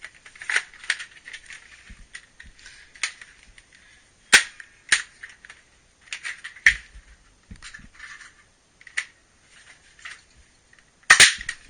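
Buzz Bee Air Warriors Rangemaster bolt-action toy air blaster being pumped and fired: a run of plastic clicks and snaps, with the sharpest snaps about four seconds in, near seven seconds and near the end.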